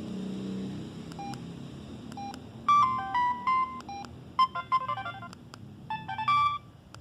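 Samsung SGH-C165 mobile phone beeping: a few single short electronic tones at first, then three quick runs of short beeps at changing pitches.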